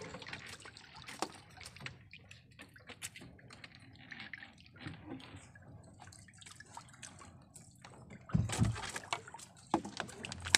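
Seawater dripping and trickling off a wet crab-trap net as it is hauled into an outrigger boat, with scattered small clicks and knocks from the traps' frames. A dull thump comes about eight seconds in.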